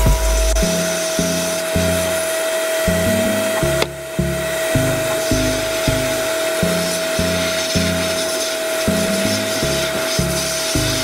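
Background music with low notes changing in even steps about twice a second, over a steady hiss.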